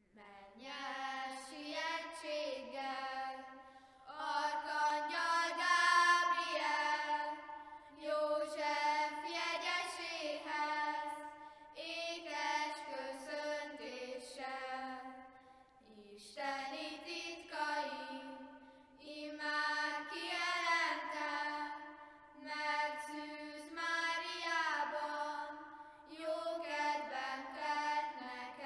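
A group of children singing unaccompanied, one melody line in phrases of a few seconds with short breaks for breath between them.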